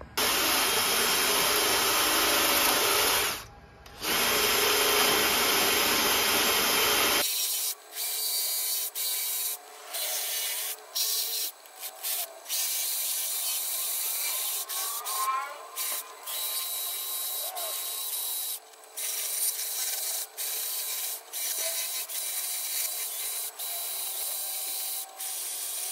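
Cordless drill spinning a grinding bit against the cast-iron block of a Packard 327 straight-eight flathead, porting the valve area by rounding the edges around the valves and cylinders. It runs steadily for about seven seconds with one short break, then in many short bursts with brief stops.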